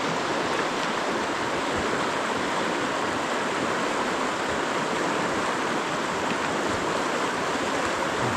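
Fast-flowing river current rushing steadily over rocks, a continuous even whoosh of moving water.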